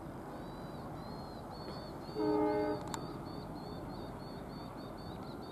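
A vehicle horn gives one steady blast of about half a second, about two seconds in, over steady outdoor background noise. A faint, high chirping repeats evenly, several notes a second.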